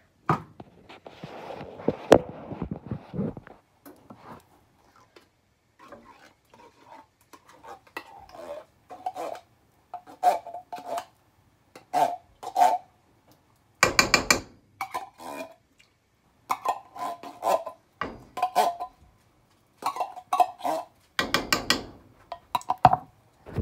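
Metal spoon scraping and clinking against a tin can as condensed cream of chicken soup is spooned out: irregular runs of short, ringing clinks, with a rustle in the first few seconds.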